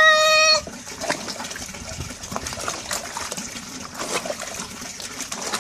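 A cat's drawn-out yowl, heard as "Raúl", ends about half a second in. Then water runs and splashes steadily, with small knocks.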